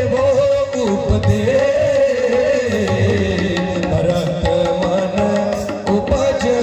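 Indian devotional ensemble music: a wavering melody line with strong vibrato over a steady harmonium-like drone, with tabla strokes keeping the beat.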